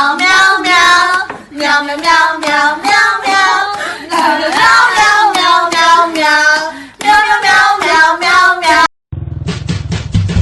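A high-pitched, child-like voice singing in short phrases. About nine seconds in it cuts off abruptly and electronic music with a steady beat starts.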